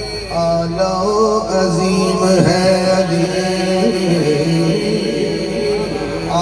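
A man singing an Urdu devotional manqabat into a microphone over a PA system, in long held notes that waver slowly in pitch, without clear words.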